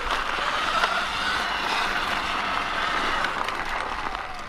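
Sur-Ron X electric dirt bike being ridden along a dirt trail: a steady rush of tyre and riding noise with a faint motor whine and scattered small clicks from the ground.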